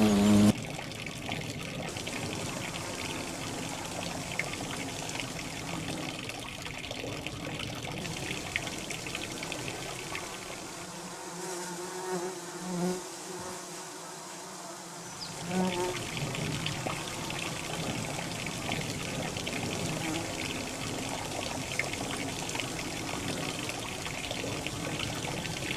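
Garden bumblebees (Bombus hortorum) buzzing in flight around their nest entrance, a steady drone with a few louder close passes about halfway through.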